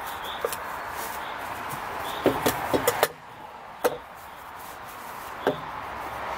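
Short clicks and knocks of a small camping gas stove and its fabric pouch being handled, with a quick cluster of them about two seconds in and two more single knocks later. They sit over a steady rush of road traffic.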